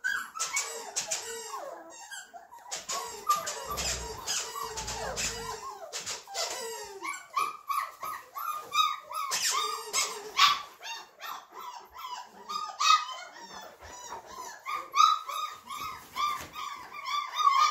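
Flat-coated retrievers at play: high-pitched whines and squeals, turning into a run of short repeated squeaks, several a second, from about halfway on, over scattered clicks and knocks.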